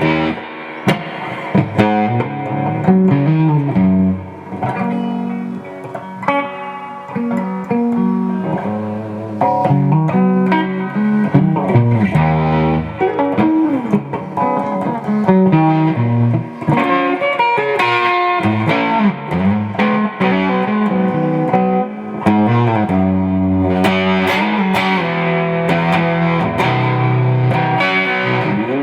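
1986 Fender Contemporary Telecaster electric guitar played through an amplifier: a run of single notes and chords with a few bent notes, the guitar working again after repair of its pickup selector switch connections.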